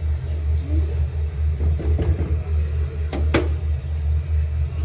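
Steady low rumble while a thick tamarind chutney is stirred in a pot on a gas stove. Two sharp knocks come close together a little after three seconds in.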